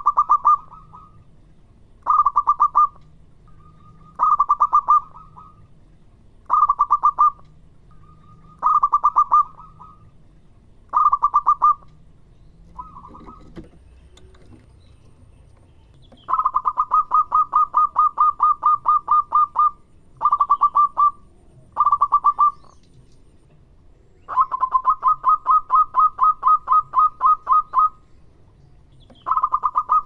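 Zebra dove (perkutut) cooing in quick trilled runs of clipped notes. The first phrases are short, about a second each and coming every two seconds; about halfway through they stretch into longer runs of three to four seconds.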